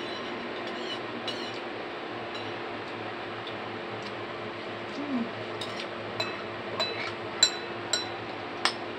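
Metal spoon clinking against a soup bowl while eating: a handful of light, ringing clinks in the second half, the loudest about seven and a half seconds in, over a steady background hum.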